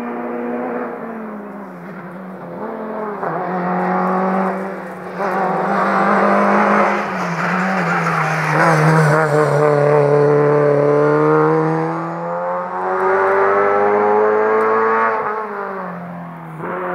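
Rally car engine revving hard through a hairpin. The pitch dips and climbs again several times as it brakes, shifts gears and accelerates away, loudest in the middle.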